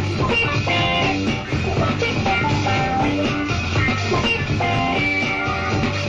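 Live jazz-rock fusion band playing an instrumental number, heard as a soundboard recording: electric guitar, keyboards, electric bass and drums, with many quick, short notes over a steady low bass.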